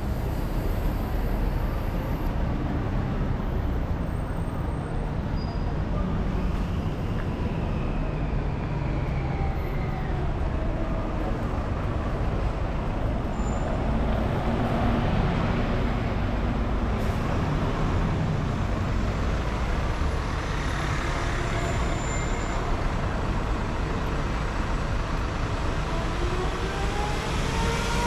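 Street traffic with city buses passing close by over a steady low rumble. Bus engines rise and fall in pitch as they move off.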